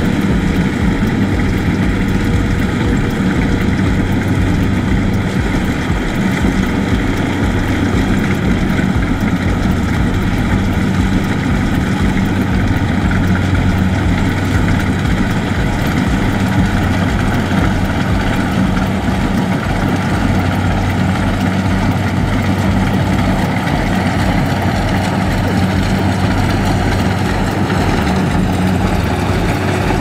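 Kubota DC70 combine harvester's diesel engine and machinery running steadily while it cuts rice, a loud, even mechanical drone with a low engine hum and no let-up.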